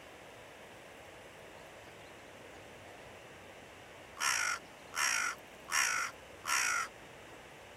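Carrion crow giving four evenly spaced caws, one about every three-quarters of a second, in the second half.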